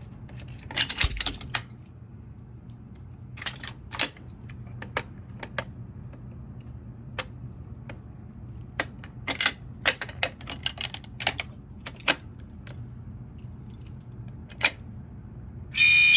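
Scattered sharp clicks and clacks of a fire alarm pull station being handled and worked, over a low steady hum. Right at the end the fire alarm system starts sounding.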